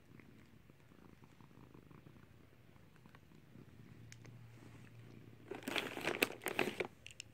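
Domestic cat purring steadily, joined near the end by a loud crackling rustle lasting about a second and a half.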